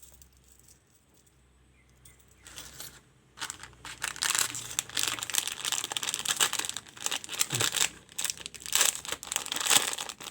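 Packaging being unwrapped: crinkling and crackling with some tearing, starting about three seconds in and continuing busily.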